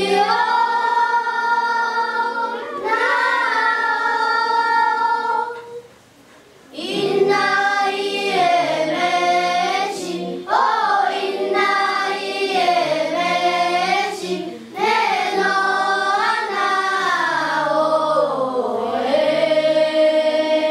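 A choir singing unaccompanied in long held notes, in phrases with a short break about six seconds in.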